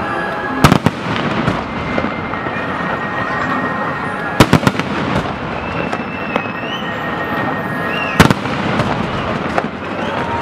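Fireworks display: a dense, continuous crackling barrage with three sharp loud bangs roughly every four seconds, and a few short rising whistles over the crackle.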